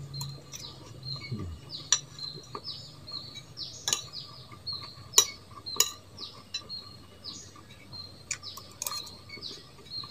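Metal spoon clinking and scraping against a ceramic plate while eating rice, with several sharp clinks, the loudest about five seconds in. Small birds keep chirping in the background in short, quick falling chirps.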